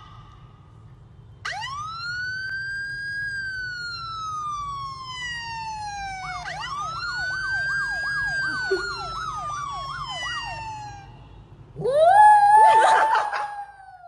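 A siren wails twice, each time rising quickly and falling slowly, with a fast warbling yelp laid over the second wail. Near the end a small white dog howls along, louder than the siren.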